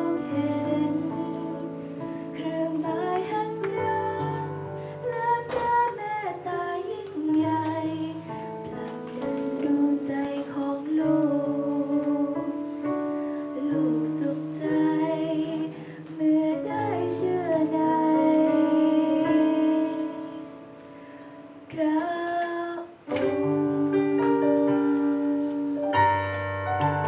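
A young woman sings a devotional song into a handheld microphone over instrumental accompaniment with sustained bass notes. The music drops quieter briefly about three-quarters of the way through, then picks up again.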